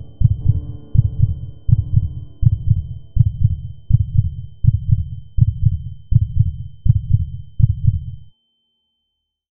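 Heartbeat-like sound effect: low, regular thumps about one every three-quarters of a second, over a faint steady high tone and a fading drone. The thumps cut off suddenly about eight seconds in.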